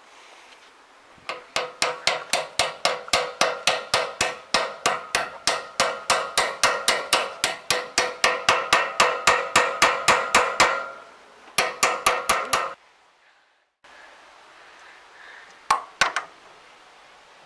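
Hammer blows on a steel tube drift, driving a bearing onto the shaft of a Claas Rolant 46 baler roller: a fast steady run of metallic blows, about three a second, each ringing. A shorter burst follows, then a couple of single blows near the end.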